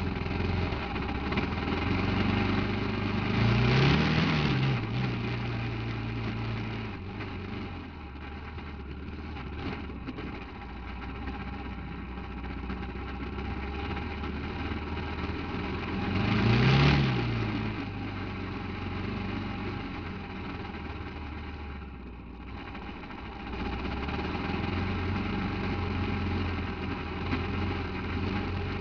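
Off-road buggy engine running at low revs, revved up and let fall back twice, about four seconds in and again about seventeen seconds in.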